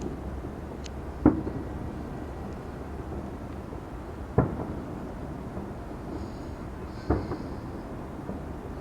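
Fireworks shells bursting overhead: three loud bangs about three seconds apart, each trailing off in a short echo, over steady background noise.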